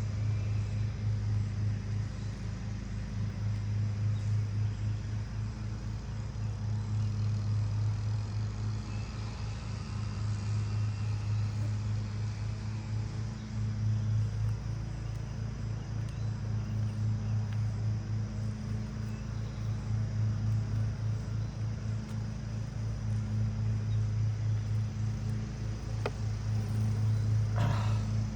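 Honeybees buzzing around an open hive: a steady low hum that swells and fades.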